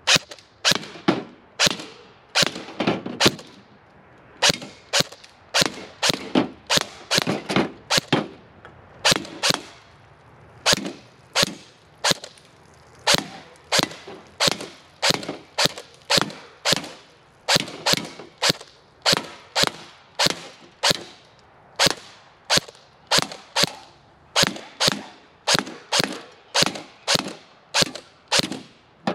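Gameface Ripcord M4 electric airsoft rifle firing single shots, irregularly spaced at about one to two shots a second, each a sharp crack.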